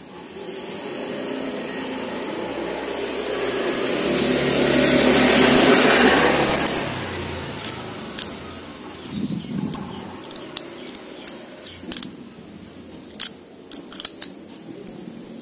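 A passing vehicle's rushing noise with a low hum swells over the first few seconds and fades away about halfway through. After that come scattered sharp clicks of needle-nose pliers working the copper winding wire at the commutator of an electric blower motor's armature.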